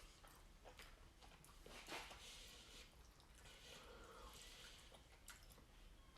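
Faint wet chewing and mouth clicks from eating creamy spaghetti Alfredo, with a few soft smacks scattered through.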